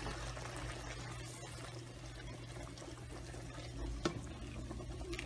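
A plastic spoon stirring sliced sausage through simmering tomato sauce in a skillet: faint wet stirring and bubbling, with a light tap of the spoon about four seconds in.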